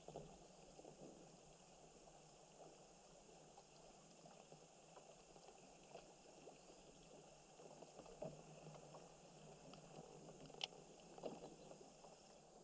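Near silence: faint water lapping against a kayak hull, with scattered small ticks and two sharper clicks near the end.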